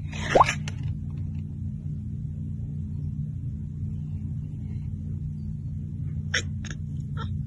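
A steady low rumble, with a short rising squeak about half a second in and a few quick clicks near the end.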